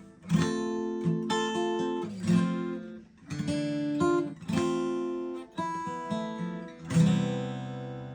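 Taylor 214 DLX acoustic guitar playing a series of chords, each struck and left to ring. The last and loudest chord comes about seven seconds in and fades out slowly.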